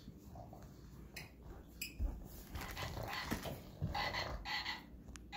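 Pug making short, breathy noises as it plays with a ball, with a knock about two seconds in and rustling of the dog beds and toys.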